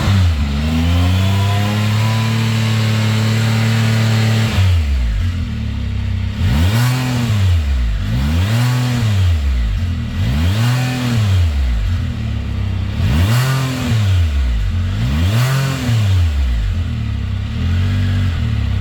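2022 Can-Am Spyder F3S's three-cylinder engine on its stock exhaust, revving: held at a raised speed for about four seconds, then dropping back and blipped up and down five times about two seconds apart, with a smaller blip near the end before settling to idle.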